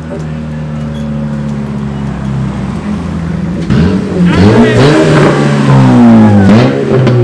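Car engine, most likely the lowered Honda Civic sedan as it passes close by, running steadily at first and then revved up and down several times from about halfway through, loudest as it goes past.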